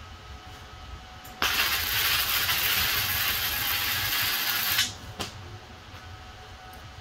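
Electric welding arc on steel plate: a steady crackling hiss that starts suddenly about a second and a half in, runs for about three and a half seconds and cuts off. A single click follows shortly after.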